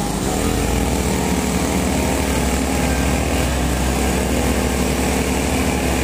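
Komatsu WA120 wheel loader's diesel engine running steadily as the loader drives.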